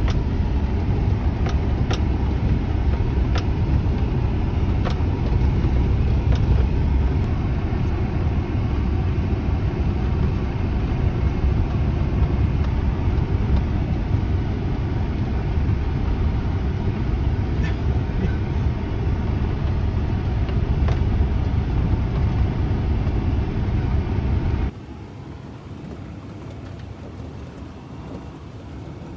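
Low, steady rumble of a car driving slowly over a rough dirt road, heard from inside the cabin, with a few light knocks. Near the end the rumble drops sharply to a much quieter level.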